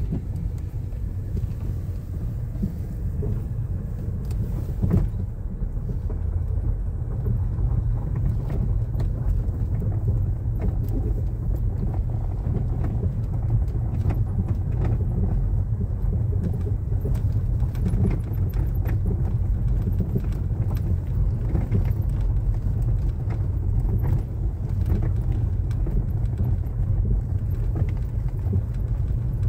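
Car driving slowly on a gravel road, heard from inside the cabin: a steady low rumble of tyres and road, with scattered small clicks and knocks from the gravel.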